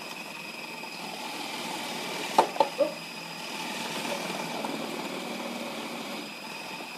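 Food processor running, its shredding disc cutting cabbage fed through the tube: a steady whir with a faint high whine. Three sharp knocks come close together about two and a half seconds in.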